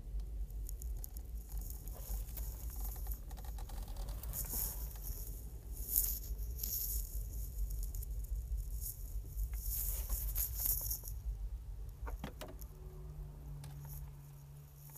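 Steady low road rumble inside a moving car, with bursts of rattling and handling noise. A low steady hum joins about twelve seconds in.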